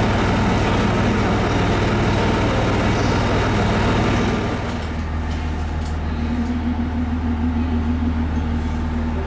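KiHa E130 series diesel railcar's engine idling while the train stands at the platform. About halfway through, the engine note drops lower and a little quieter, then holds steady.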